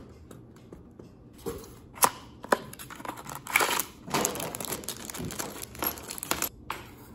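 A couple of sharp clicks, then a clear plastic bag holding small screwdrivers and a replacement battery crinkling and rustling as it is handled and pulled open.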